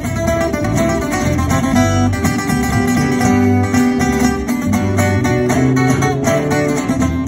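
Small live guitar band playing an instrumental passage: picked melody notes and strummed chords over a steady bass line, played loud through amplification.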